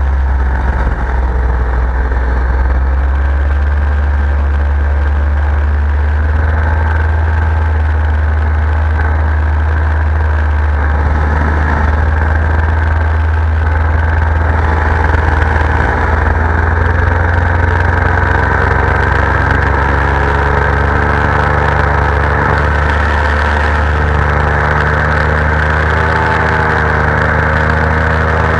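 Paramotor engine and propeller running steadily in flight, heard close up from the pilot's position; the engine note creeps slightly higher in the second half.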